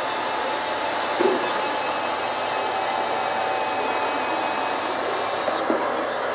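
Steady whirring of a small motor with faint whining tones, and two short knocks, one about a second in and one near the end.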